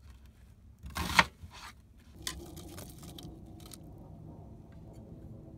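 Knife slicing through an onion on a wooden cutting board, with one sharp knock about a second in and a few lighter clicks after.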